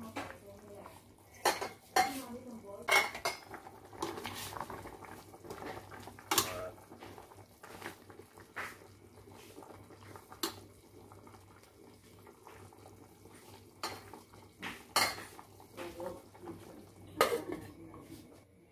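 Metal spoon stirring a thick chicken liver stew in a stainless steel pot, clinking and scraping against the pot at irregular moments. Near the end the metal lid is set on with a clank.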